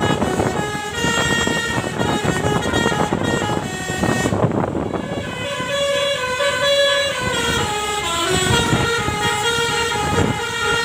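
Bus telolet basuri musical horn playing a long melody, its notes stepping up and down one after another. Noisy background in the first few seconds; the notes stand out clearer and longer in the second half.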